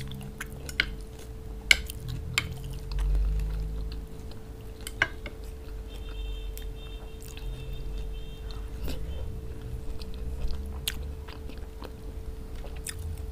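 Close-miked chewing of a mouthful of rice and lamb, with a metal spoon now and then clicking and scraping on a ceramic plate. A faint steady hum runs underneath.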